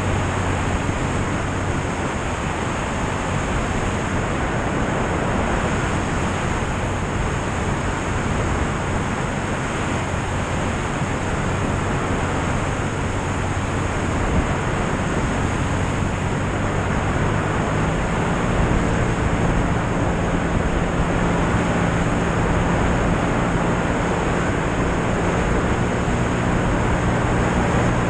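In-flight wind rush over a wing-mounted camera, with the steady drone of a light aircraft's propeller engine underneath. About two-thirds of the way through, the engine tone shifts a little higher and louder.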